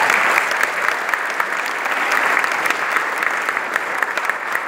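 Audience applauding: many hands clapping at once in a dense, even patter, strongest at the start and easing off slightly.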